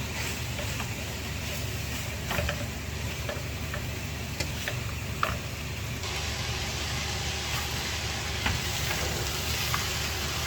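Dried shredded cassava (abacha) frying in oil in a pan while being stirred: a steady sizzle with scattered clicks and scrapes of the spoon against the pan. The sizzle gets a little brighter about halfway through.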